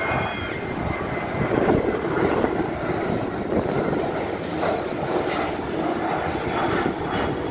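Jet engines of an Alaska Airlines Boeing 737 climbing out just after takeoff: a steady, loud rushing engine noise that swells slightly about two seconds in.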